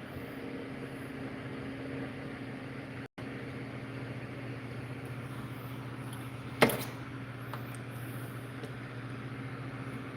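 A steady mechanical hum with a few fixed low tones. It breaks off for an instant about three seconds in, and a single sharp click comes about two-thirds of the way through.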